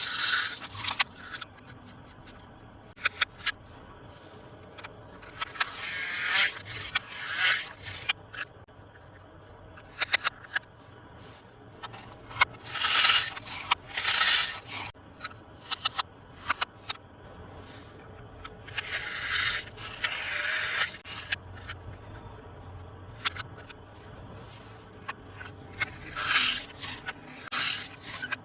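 Toy packaging being handled and scraped: repeated scraping and rustling bursts of a second or two each, with sharp clicks and taps between them.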